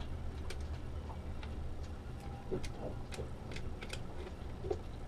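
Scattered light, irregular clicks of hands handling small wires and screws at a screw-terminal bus bar, over a low steady hum.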